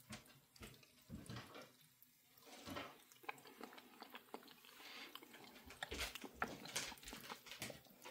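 Faint, wet eating sounds: a spoonful of MRE au gratin potatoes being taken and chewed, with scattered small clicks.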